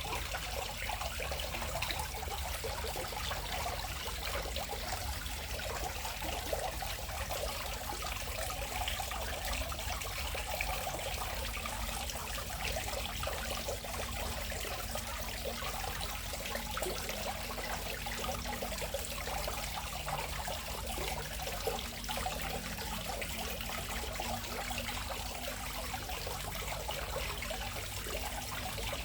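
Dense, steady chorus of frogs and toads calling from a fish pond, a continuous chatter of many overlapping small calls blended with a trickling-water sound.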